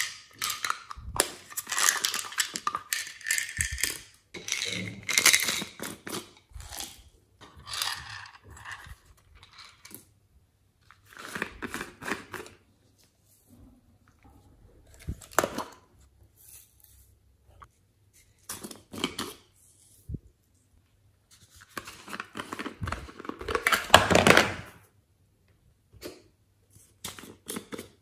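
Glitter and small beads shaken and poured from small plastic jars into a glass dish, with plastic clicks and rattles of the containers being handled. The sound comes in irregular bursts with short pauses, the longest and loudest near the end.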